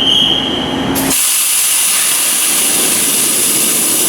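A high steady tone cuts off about a second in and a loud, steady hiss takes over as the Akasaka AX31R marine main diesel engine is started on its test bed.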